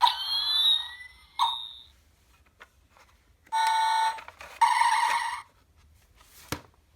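Electronic sound effects from a play-a-sound book's button module through its small speaker: a sweeping zap that glides in pitch, a short blip, then two buzzy electronic tones of about half a second each. A sharp click comes near the end.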